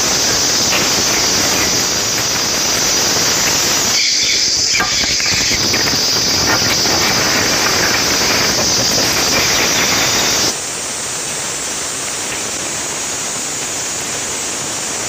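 Steady hissing noise, dropping a little in level about ten and a half seconds in.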